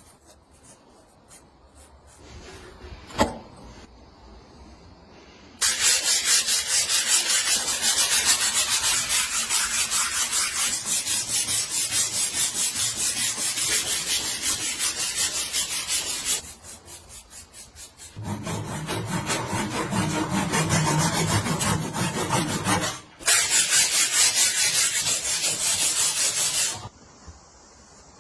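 Rapid, even back-and-forth scraping strokes in three long spells with short pauses between them; a single sharp click about three seconds in.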